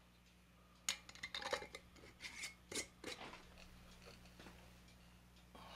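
Metal screw lid being put on a glass jar: a quick run of light clinks and clicks of metal on glass for about two seconds, then quiet handling noise.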